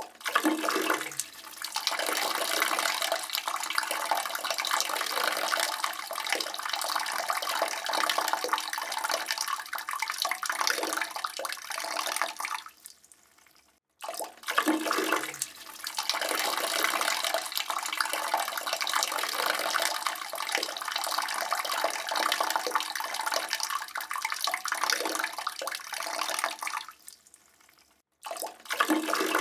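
A man urinating into a toilet bowl: a steady splashing stream of urine into water that tails off and stops, then starts again, twice over, each stream lasting about thirteen seconds, with a third stream starting near the end.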